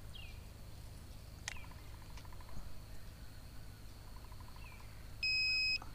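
A handheld digital fish scale gives one short, high electronic beep near the end as it locks a bass's weight. Faint bird chirps and a rapid pulsing trill sound in the background.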